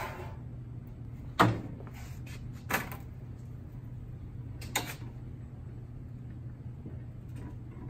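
Mittler Brothers 48-inch box and pan brake folding up a sheet-metal flange as its bending leaf is swung up: three sharp clunks, the loudest about a second and a half in, over a steady low hum.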